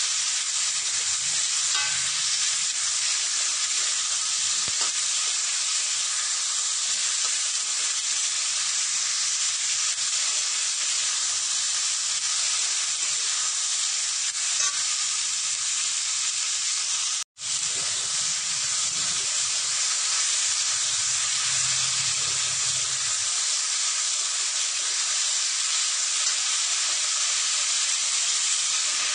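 Chopped green beans frying in hot oil in a metal kadai, a steady sizzle, as a metal spatula turns them. The sound cuts out for an instant a little past halfway.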